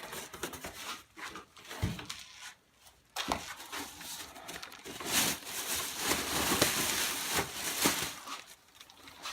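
Packing material and cardboard rustling and scraping as a boxed power tool is unpacked, with two sharp knocks in the first few seconds and a louder stretch of rustling near the middle.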